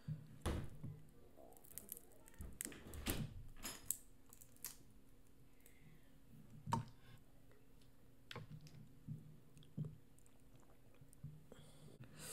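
Boiled crawfish shells being cracked and peeled by hand: scattered quiet crackles and sharp clicks, thickest in the first few seconds, with some wet squishing and chewing.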